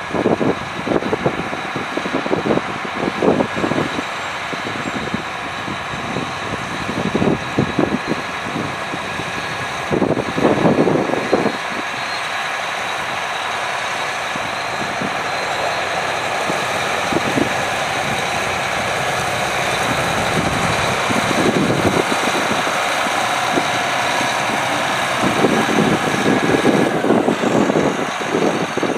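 2012 John Deere 8360R tractor's six-cylinder diesel engine running steadily as the tractor drives, with a faint high whine on top. Wind buffets the microphone at times.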